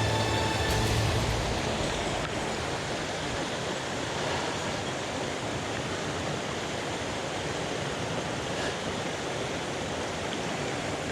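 Mountain stream water rushing steadily. A low hum fades out in the first second or so.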